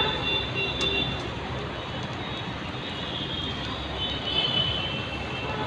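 Steady street noise of traffic and roadside bustle, with a few faint high tones partway through.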